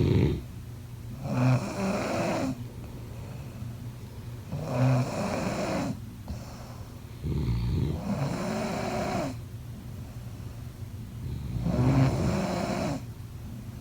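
A person snoring in slow, regular cycles: a loud snore about every three and a half seconds, four in all, with quieter breathing between.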